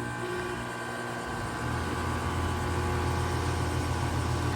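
2018 Goodman GSZ14 2-ton heat pump starting up: a steady hum, joined about a second in by a deeper hum that grows louder for a second or so and then holds steady.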